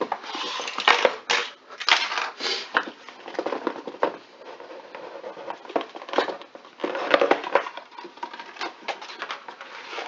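Stiff cardboard of a smartphone box being worked open by hand: irregular crackling, scraping and tapping as the snug lid is pried and slid off.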